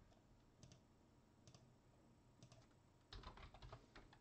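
Faint typing on a computer keyboard: a few scattered key clicks, then a quick run of keystrokes about three seconds in.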